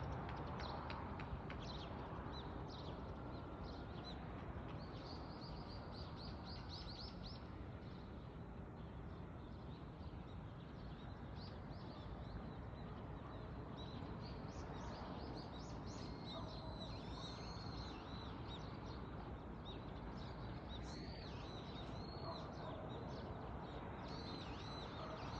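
Small birds chirping in short, high, repeated calls that come in clusters, over a steady outdoor background hiss.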